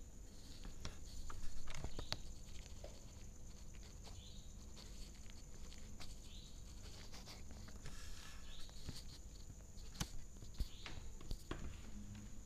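A cat eating cooked rice close to the microphone: scattered small clicks and chewing noises, loudest about a second and a half in. A steady high-pitched whine sits behind.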